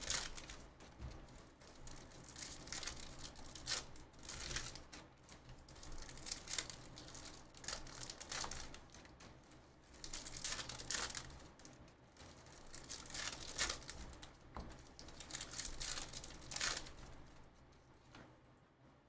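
Foil trading-card pack wrappers being torn open and crinkled by hand, in repeated short rips and rustles that die down near the end.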